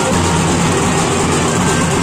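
Loud banjo-party band music: a Mumbai street band playing, dense and steady throughout.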